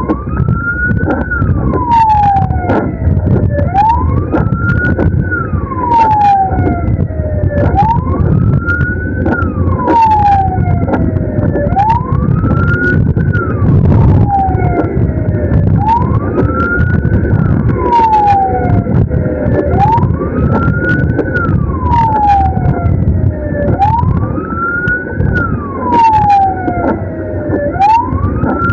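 Ambulance siren on wail, each cycle rising and then falling over about four seconds and repeating steadily, over loud engine and road noise, with scattered sharp clicks.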